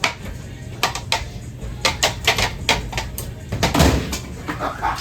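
Ceiling fan being smashed, giving off a rapid, irregular clatter of sharp knocks, with a heavier knock about four seconds in.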